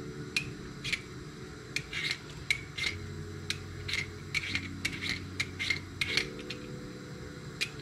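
A Y-shaped vegetable peeler scraping the skin off a red potato in short, uneven strokes, about two a second, over a low steady hum.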